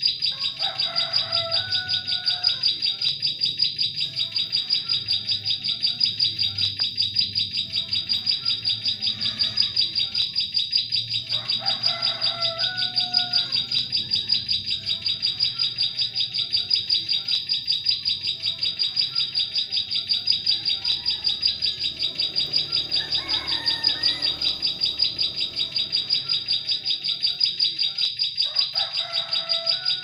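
Ciblek sawah (a prinia) calling in a rapid, unbroken run of high chirps, a recorded lure call for drawing in prenjak birds. Other birds give a few lower calls now and then.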